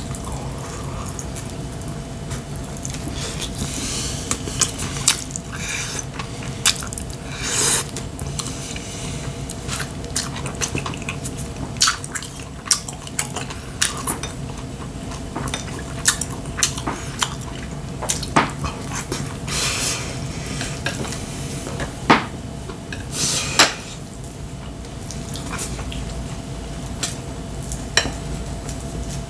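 Chopsticks clicking, tapping and scraping against ceramic bowls and plates in irregular sharp clicks, with several louder knocks later on.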